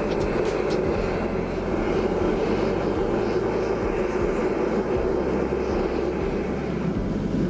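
Metal-melting furnace burner running at full fire with a loud, steady rushing roar while a crucible of copper and tin melts down for a bronze casting.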